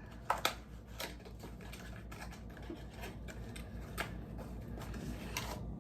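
Light, scattered clicks and taps of hands fumbling with a small bottle and its cap on a kitchen counter.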